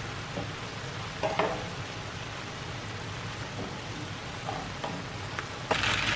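Ground beef and cremini mushrooms sizzling steadily in a nonstick frying pan, with a couple of light knocks from a wooden spatula stirring them.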